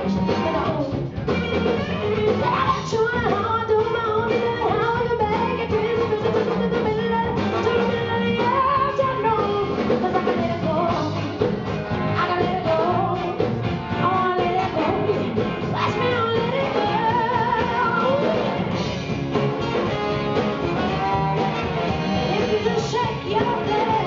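Live band music: drum kit, electric bass and harmonica playing loudly, with a woman singing over them.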